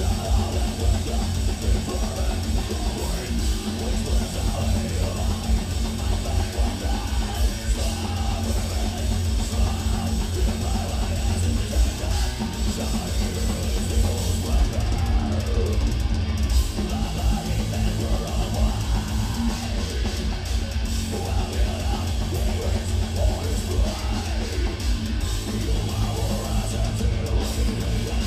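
Heavy metal band playing loud and live: distorted, low-tuned extended-range guitars chugging over a drum kit, with a fast, dense kick-drum pulse underneath.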